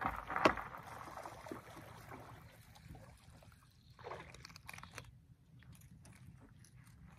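Hooked fish splashing at the water's surface as it is reeled to the boat and swung out on a spinning rod, with a sharp knock about half a second in and scattered small clicks near the end.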